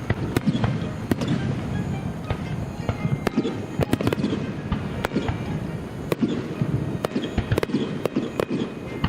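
Fireworks going off: a rapid, irregular string of sharp bangs and crackles, several a second, over a continuous low rumble.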